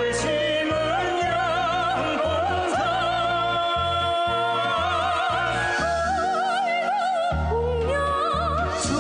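A song playing: a singer holding long notes with wide vibrato over band accompaniment with a pulsing bass line.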